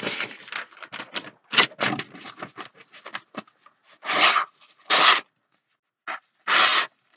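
Steel knife blade scraping in a run of short strokes, three of them louder and about half a second long in the second half.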